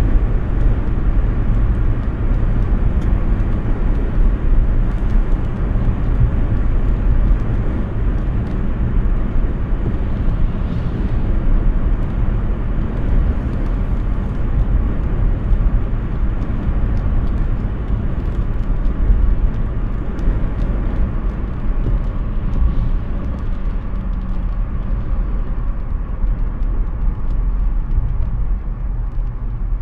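Hyundai Ioniq 6 electric car driving at speed: steady low rumble of tyre and wind noise with no engine sound, easing slightly near the end.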